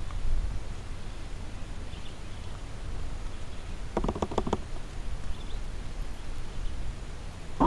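Wind buffeting the microphone as a steady low rumble. About four seconds in there is a quick run of about six sharp clicks, and faint high chirps come now and then.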